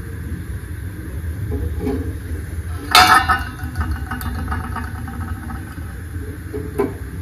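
An egg dropped into a stainless-steel saucepan of water knocks against the pan with a short metallic ring about three seconds in; a second egg is set in with a softer knock near the end. A steady low hum runs underneath.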